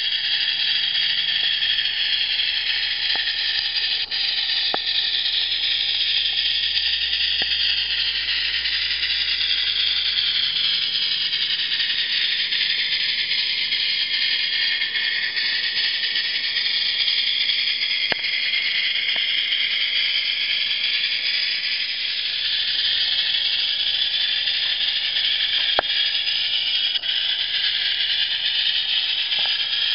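A live-steam Accucraft Shay garden-railway locomotive giving off a steady hiss of steam as it works slowly under load. A few faint ticks come through the hiss.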